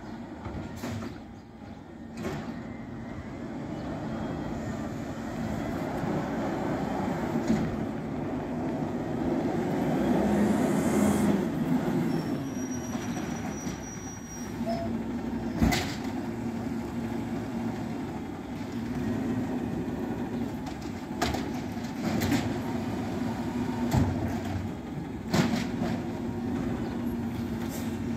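Autocar ACX Xpeditor garbage truck with an Amrep automated side loader working the street: its engine runs steadily and swells for a few seconds midway, a brief high whine comes in about halfway through, and sharp bangs sound every few seconds.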